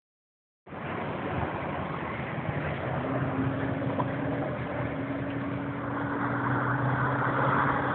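Car engine and road noise heard inside a moving car's cabin: a steady drone that cuts in under a second in and grows slowly louder, with a low hum joining about three seconds in.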